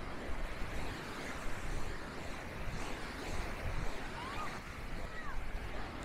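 Sea waves washing onto a beach as a steady hiss, with low wind buffeting on the microphone. A couple of faint, short calls that slide up and down in pitch come through about four and five seconds in.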